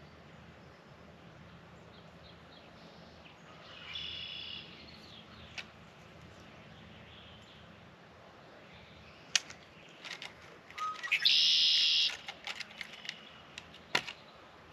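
A bird calls twice: a short high call about four seconds in and a louder, longer one near the end. Sharp clicks and knocks come in between and after.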